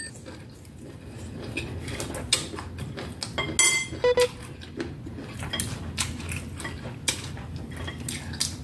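Chopsticks clicking together and tapping against takeout bowls and plates while eating, with one brief ringing clink about three and a half seconds in.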